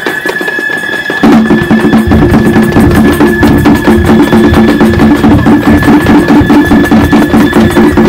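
Festival music for a Japanese shishi lion dance: a drum beating in a quick, steady rhythm under a high held flute-like note. About a second in, a lower-pitched part comes in and the music gets louder.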